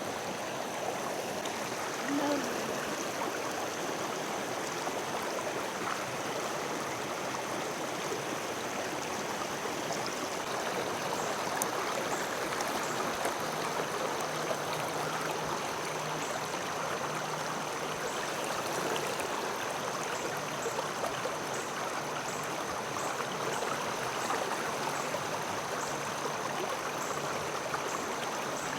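Mountain creek water running steadily over rocks, an even rushing with a faint steady high-pitched tone above it.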